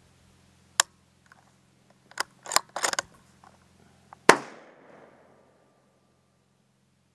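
Metallic clicks of a rifle action being worked, a single click and then a quick run of clicks, followed by one sharp shot-like crack that rings off over about a second.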